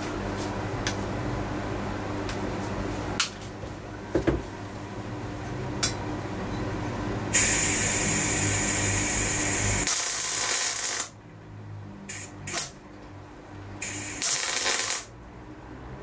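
MIG welder in use: a steady machine hum with a few sharp clicks, then the welding arc hissing and crackling for about two and a half seconds from roughly seven seconds in. The hum drops away near eleven seconds, followed by two shorter bursts of arc hiss.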